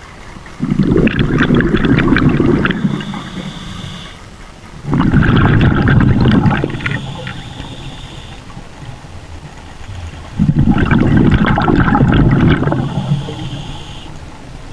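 Scuba diver breathing on a regulator underwater: three long bursts of exhaled bubbles about five seconds apart, with a thin hiss from the regulator between them.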